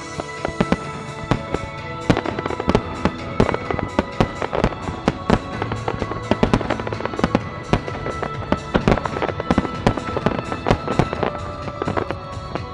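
A fireworks display: a dense volley of bangs, several a second, growing thicker about two seconds in, with music playing underneath.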